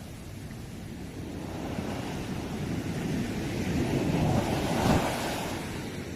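Sea waves breaking on the shore: the surf rushes in, swelling over a few seconds to its loudest about five seconds in, then draws back.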